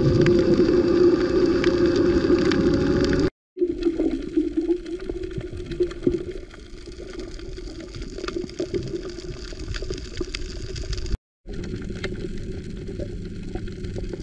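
Underwater sound picked up by a diving camera: the steady hum of a boat engine running in the water, with scattered sharp crackling clicks typical of snapping shrimp on a coral reef. The sound cuts out completely twice, for a fraction of a second each time.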